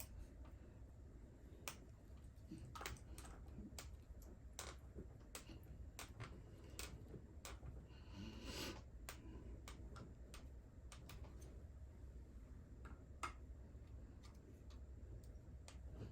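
Scattered light clicks and ticks of small hand tools and screws against the plastic parts of an RC car axle being unscrewed and taken apart, with a brief rustling scrape about halfway through.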